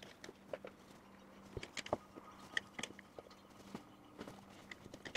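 Faint, scattered clicks and light knocks of a jar and spatula being handled and set down on a kitchen worktop, over a faint steady low hum.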